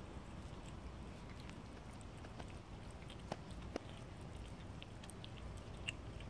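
Cat chewing and lapping wet food: faint, irregular smacking and small clicks, a few of them sharper, over a steady low rumble.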